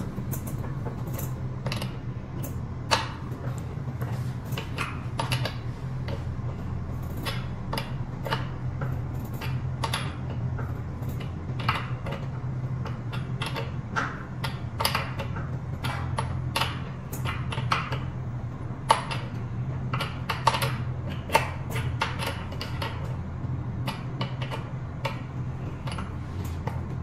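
Irregular light clicks and clinks of metal parts being handled on a JOYOR Y6S electric scooter's front spring shock absorber and headlight bracket, over a steady low hum.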